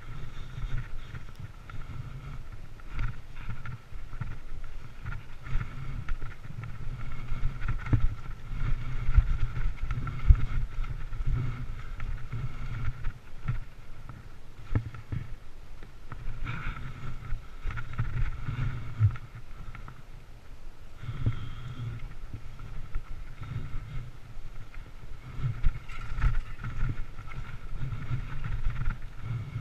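Mountain bike riding over a dirt trail: a steady low rumble with frequent knocks and rattles as the bike goes over bumps.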